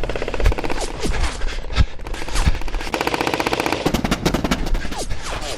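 Airsoft guns firing rapid full-auto bursts, several overlapping, with a few single shots in between.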